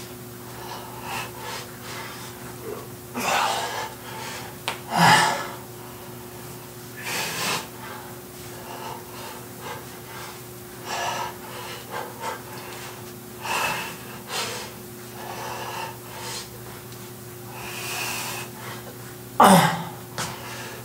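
A man breathing hard with forceful puffs of breath every couple of seconds while doing squats. A steady low hum runs underneath.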